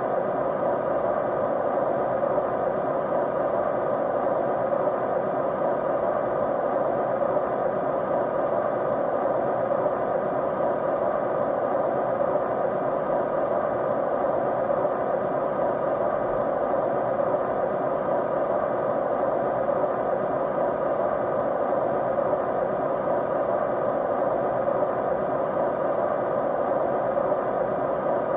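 Continuous, unchanging white noise, strongest in the mid-range rather than as a high hiss.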